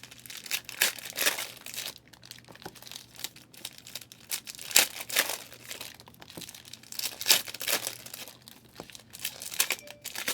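Foil trading-card pack wrappers being torn open and crinkled, with cards handled, in a run of irregular rustles and crackles.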